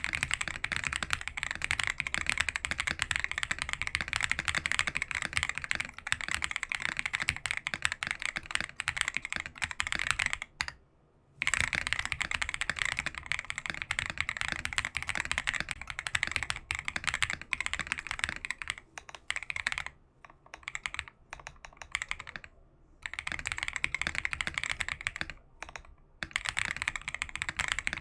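Continuous fast typing on a CIY GAS67 mechanical keyboard with lubed Akko Vintage White linear switches, Matcha keycaps and Keychron screw-in stabilisers, in runs of rapid keystrokes broken by brief pauses, the longest about eleven seconds in.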